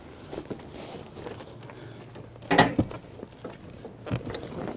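Pop-up camper roof being pushed down by hand: scattered creaks and clicks from the folding frame and canvas, with one loud knock about two and a half seconds in and a smaller one near the end.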